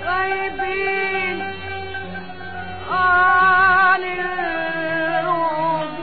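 Old recording of Egyptian classical Arabic music: a melody held in long, wavering notes, with a louder phrase about three seconds in.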